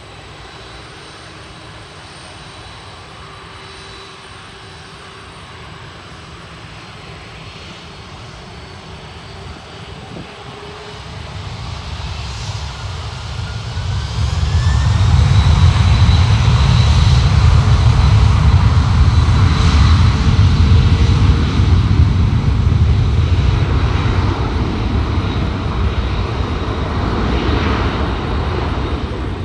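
Jet engines of a twin-engine widebody freighter spooling up to takeoff thrust: a rising whine about a dozen seconds in, then a loud steady rumble as it accelerates down the runway. The sound eases a little near the end.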